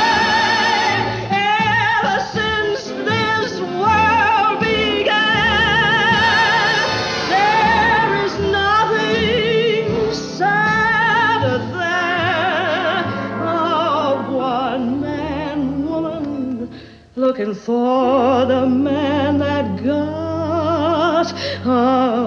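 Background song with a singer holding notes in a wide, wobbling vibrato over accompaniment. The music drops out briefly about three quarters of the way through.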